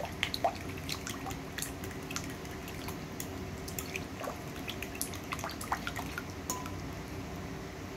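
A utensil stirring a liquid marinade in a bowl: irregular light clicks and wet sloshing, over a steady low hum.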